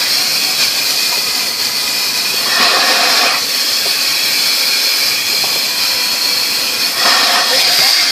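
Car wash air dryer blowers running with a loud, steady hiss, heard from inside the car. The hiss swells briefly about two and a half seconds in and again near the end.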